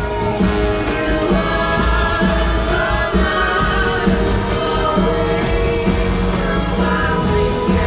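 Music with singing voices holding long notes over a deep, steady bass.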